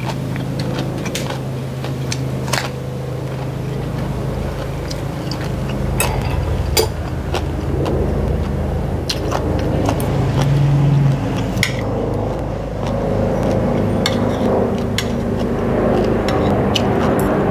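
A metal spoon and fork clicking and scraping on a ceramic plate, with chewing, over the steady low hum of a vehicle engine whose pitch steps up about ten seconds in.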